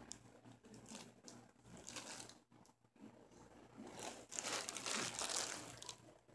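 Close rustling and crinkling of fabric, with scattered scratches, swelling into a loud rustle about four seconds in before dying away near the end.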